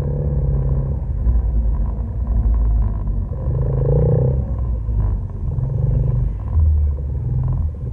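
Side-by-side UTV engine running as the vehicle crawls over a dirt track, its low rumble rising and falling with the throttle. A brief higher engine note comes in about four seconds in, as other off-road vehicles idle close by.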